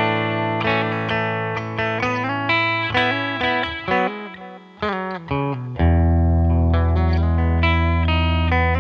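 SQOE SETL980 Telecaster-style electric guitar, with a humbucker at the neck and a single-coil at the bridge, played through an amp. It plays a run of picked single notes over a low ringing note, then strikes a low chord about six seconds in and lets it ring.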